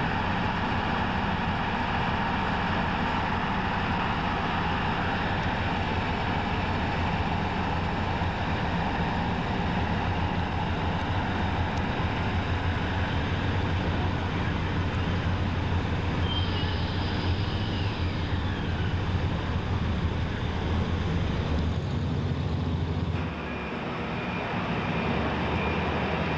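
A heavy vehicle engine running steadily, with a brief drop in level about 23 seconds in.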